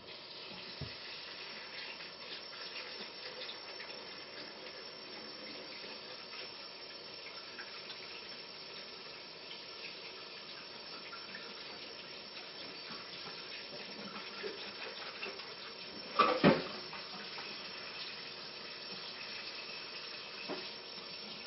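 Kitchen sink tap running steadily while hands are washed with soap under it, with a brief louder knock about sixteen seconds in.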